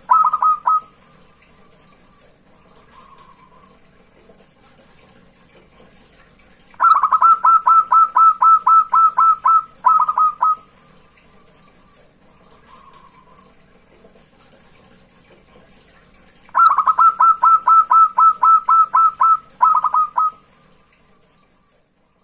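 Zebra dove (perkutut) singing: two full phrases, each a rapid string of about a dozen short staccato coos, a brief break, then a few closing notes, with the end of a phrase in the first second. Faint high chirping runs underneath.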